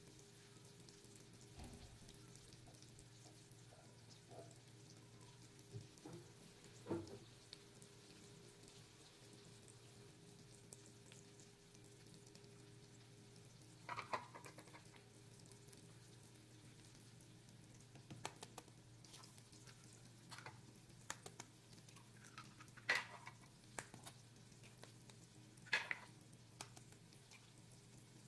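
Crumbled chorizo frying in oil in a pan: a faint, steady sizzle with scattered pops and crackles, a few louder pops about halfway and near the end, over a faint steady hum.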